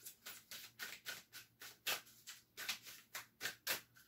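A deck of oracle cards being shuffled by hand: a faint, quick run of card slaps and flicks, about four a second, that stops just before the end.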